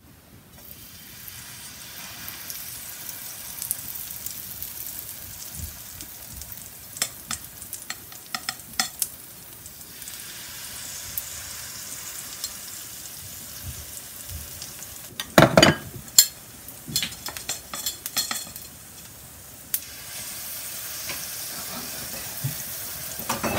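Potato-and-vegetable pancake batter sizzling in hot oil on an electric griddle, a steady frying hiss that grows a little louder near the end as more batter goes down. A serving spoon clicks a few times and knocks sharply against the metal bowl about two-thirds of the way through.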